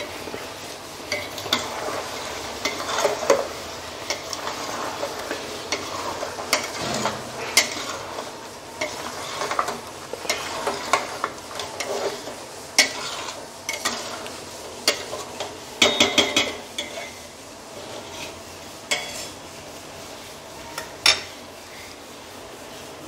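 Spatula stirring and scraping chicken masala in a stainless steel pot over a gas flame, with sizzling and repeated knocks against the pot. A quick run of taps comes about 16 seconds in, and a sharp knock near 21 seconds.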